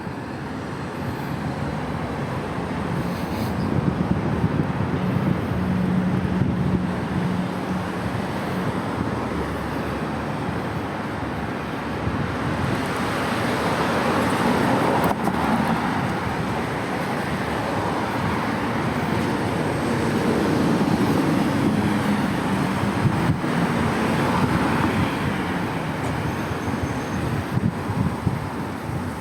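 City road traffic: cars passing close by with the hiss of tyres and engines, swelling as vehicles go past about halfway through and again later.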